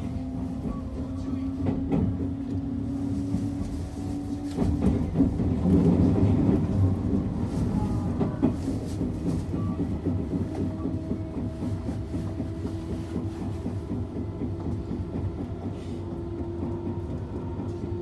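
JR 221 series electric train heard from inside the driver's cab: a steady motor and gear whine that rises slowly in pitch as the train gathers speed, with a running rumble and the wheels clicking over rail joints and points. The rumble swells louder about six seconds in.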